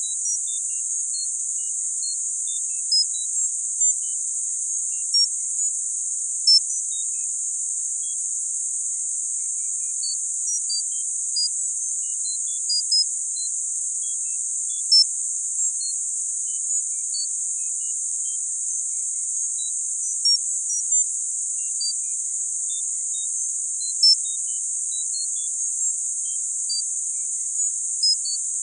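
Tinnitus-masking sound-therapy audio: a steady, high-pitched hiss confined to a narrow band, sprinkled with short high tones at scattered pitches. The tones come irregularly, several a second, and a few of them stand out louder.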